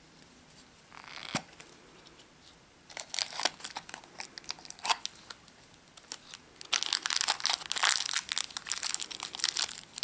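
Thin plastic wrapper crinkling and tearing as a small toy figure is unwrapped by hand, in scattered bursts at first and then continuous, with a sharp click a little over a second in.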